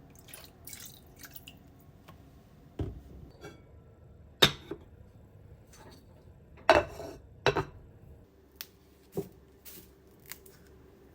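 Kitchen items being handled: a series of sharp clinks and knocks, the loudest about four and a half seconds in, with a short clatter a couple of seconds later. A faint steady hum comes in near the end.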